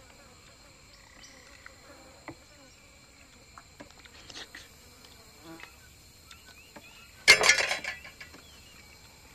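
Insect chorus droning steadily at several high pitches, with faint scattered clicks. About seven seconds in, a sudden louder burst of noise lasts under a second.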